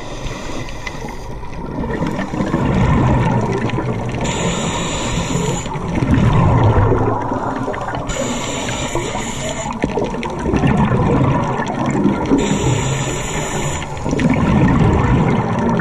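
Scuba diver breathing through a regulator underwater, about one breath every four seconds: a hiss from the regulator on each inhalation, then a burst of bubbling as the exhaled air is let out.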